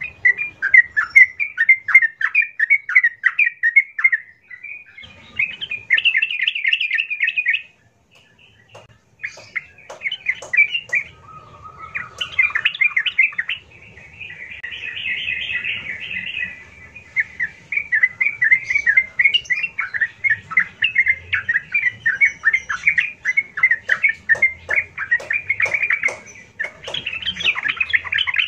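Yellow-vented bulbul (trucuk) singing loudly and vigorously: long runs of rapid, bubbling, chattering notes, with a brief pause about eight seconds in. This is the full 'gacor' song used as a lure to set other trucuk singing.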